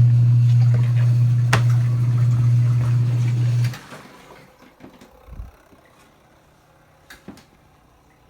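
Washing machine's electric motor humming steadily with a low electrical drone, cutting off suddenly about three and a half seconds in, followed by a few faint clicks and knocks.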